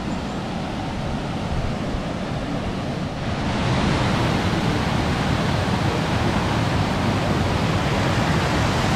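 Waterfall water rushing as a steady noise, which becomes louder and brighter about three seconds in.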